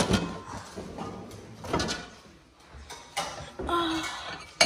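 Kitchen drawer of stacked mixing bowls being rummaged: bowls knocking together as one is lifted out, and the drawer sliding. There is a louder clatter at the start and a sharp knock near the end.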